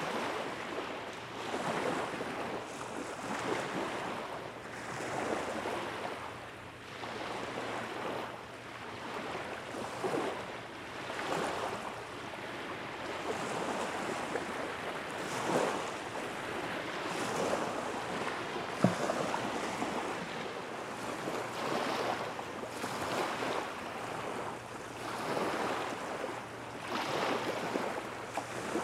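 Small waves lapping at the shore in irregular swells every second or two, with wind on the microphone. A single sharp click about two-thirds of the way through.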